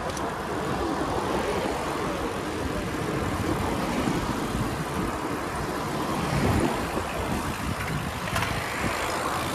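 Wind rushing over the microphone and bicycle tyres rolling on asphalt while riding along a street: a steady, rough rumble with no speech.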